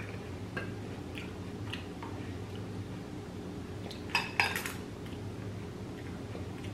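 Wooden skewer knocking against a plate twice in quick succession about four seconds in, with a few faint light taps before it, over a steady low hum.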